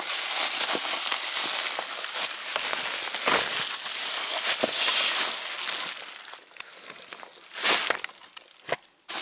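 Bubble wrap crinkling and crackling as hands unwrap a headset from it. Steady for about six seconds, then quieter, with two sharp crackles near the end.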